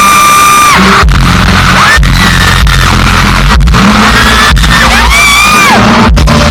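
Live pop music recorded very loud and distorted: a singer holds a long note that ends about a second in and sings another held phrase near five seconds, over a band with heavy regular beats.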